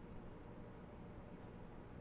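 Faint, steady low hum and hiss of room tone, with no distinct sound event.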